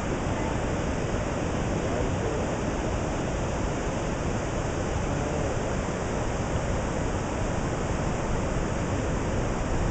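Ocean surf breaking on a beach: a steady, even rushing without breaks.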